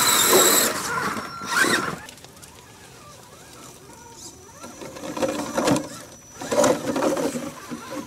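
Radio-controlled scale rock crawlers' small electric motors and geared drivetrains whirring as the trucks crawl through dry leaves and over rock, with tyres crunching the leaves. Loudest in the first two seconds, then fainter, with a few short crunches.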